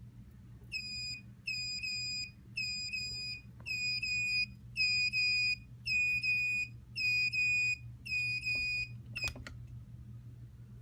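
Alarm clock's active piezo buzzer sounding its alarm: high-pitched beeps in quick pairs, a little faster than one pair a second. It stops about nine seconds in with a short click.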